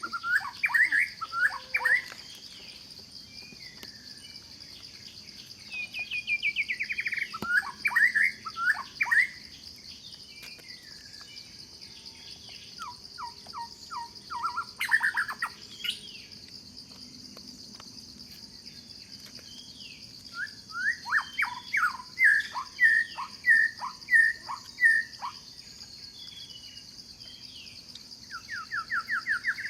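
Birds calling in several bursts of quick, falling chirps over a steady high-pitched insect drone.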